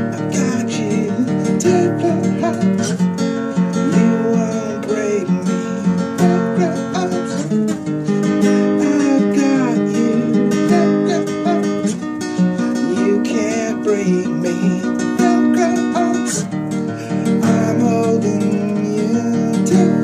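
Acoustic guitar strummed in a song demo, a steady run of chord strokes.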